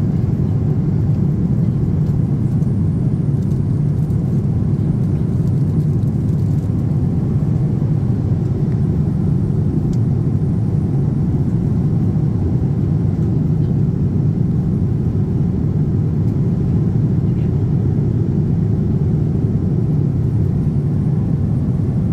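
Steady low rumble of a Boeing 787-10 airliner cabin in cruise flight at 30,000 feet, unchanging throughout.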